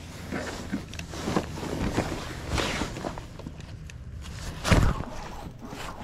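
Irregular knocks and rustling as a spinning rod and gear are handled aboard a kayak, with the loudest knock about five seconds in.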